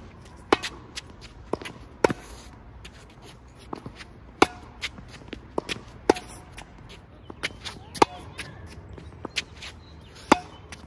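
Tennis rally: sharp pops of a tennis ball struck off racket strings, the loudest about every two seconds as the nearby player volleys, with fainter hits and ball knocks from across the court between them.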